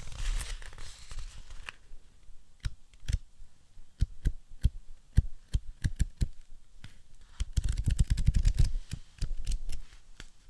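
Tapping on a hard object, starting with a scratchy rustle. Single sharp taps follow at uneven intervals, then a quick flurry of rapid taps, then a few more single taps near the end.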